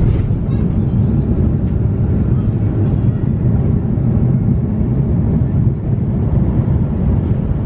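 Steady low rumble of a jet airliner's engines and airflow, heard inside the passenger cabin.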